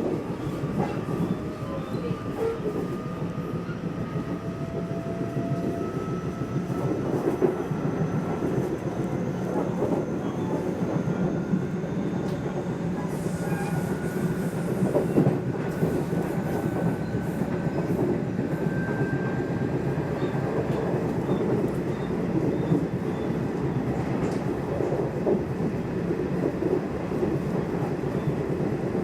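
Nishitetsu electric commuter train running along the line, heard from inside the car: a steady rumble of wheels on rails with a few brief knocks. A faint electric motor whine rises slowly in pitch through the first part.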